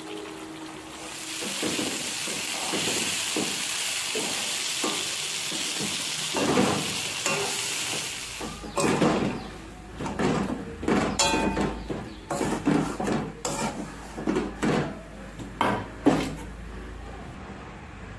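Ground bean-seed paste frying in oil in a metal pot, sizzling steadily for the first half. From about halfway on, a metal spatula scrapes and knocks against the pot in quick, irregular strokes as the paste is stirred.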